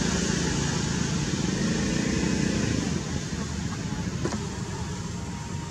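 Steady low rumble like a vehicle engine, easing off about three seconds in, with one faint click about four seconds in.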